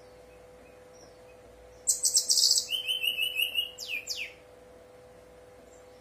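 Brown-chested jungle flycatcher (sikatan rimba dada coklat, SRDC) singing one short song about two seconds in: a fast high trill, a run of quick lower repeated notes, then two falling whistles. A steady faint hum runs underneath.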